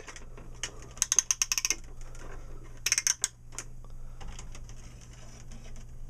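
Plastic toy clock hands on an Infantino barn shape sorter being turned, ratcheting in two quick runs of clicks, about a second in and again about three seconds in.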